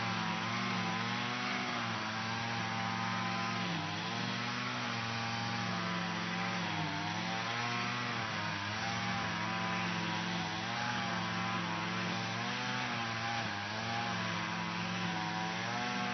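Lawn mower running steadily, its motor pitch dipping briefly and recovering a few times.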